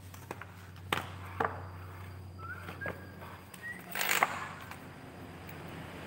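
A wooden plank being handled on a concrete floor: a few sharp knocks and light scrapes as it is brushed off and set in place, over a steady low hum.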